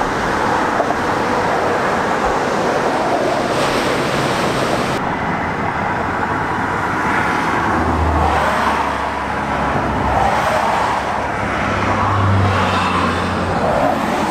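Highway traffic: a steady rush of road and tyre noise, with vehicles passing close by about eight and again about twelve seconds in.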